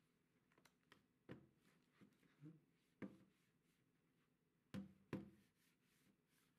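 Faint taps and knocks of a Chromebook being handled on a wooden table while it is wiped down: a few light bumps, then two louder knocks close together about five seconds in as it is lifted and stood on its edge.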